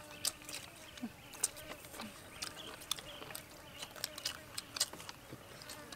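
People eating noodles with chopsticks: irregular light clicks of chopsticks against plates and bowls, mixed with chewing and mouth noises.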